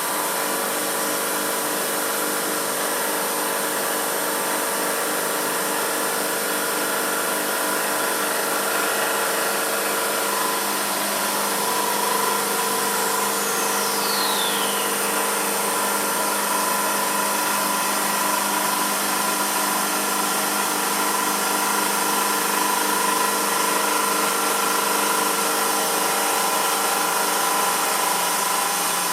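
Emco F1 CNC milling machine running steadily, its 16 mm four-flute cutter taking a light 0.5 mm finishing cut across a cast aluminium engine pan, with several steady whining tones. About halfway through, a whine falls in pitch.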